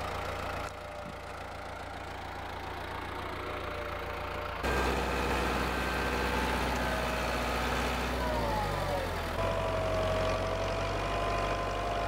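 Farm tractor engine running steadily, louder from about halfway through. Its pitch falls around eight seconds in, and a steady whine follows.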